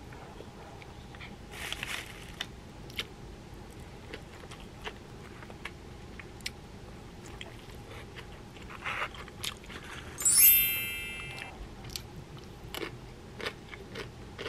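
A person eating steamed dumplings with wooden chopsticks from a styrofoam takeout box: chewing, with small clicks and brief rustles. About ten seconds in comes a single sharp, ringing clink, the loudest sound.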